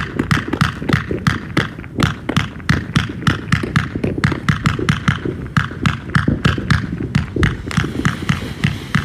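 A Yihelong 1.2-inch, 258-shot firework cake firing in rapid succession. Its shots come as sharp thumps and pops at about four to five a second, in a steady run.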